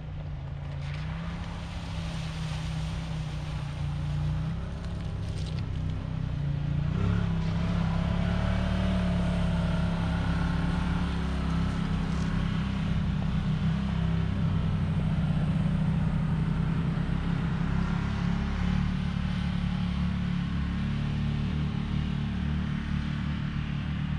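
Engine of a Can-Am side-by-side UTV running, getting louder over the first several seconds and then holding steady.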